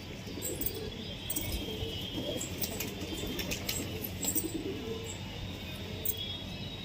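Flock of domestic pigeons cooing in low, wavering calls while feeding, with many short, sharp ticks of beaks pecking grain off concrete.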